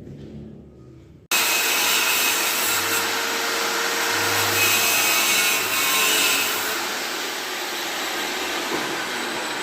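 A power tool starts up suddenly about a second in and runs steadily and loudly, a coarse, even whirring noise.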